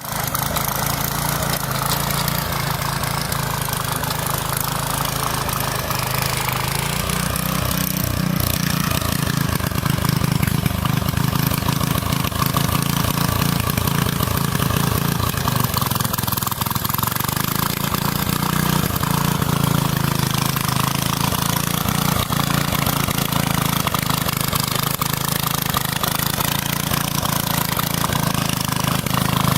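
Small engine of a walk-behind tractor running steadily.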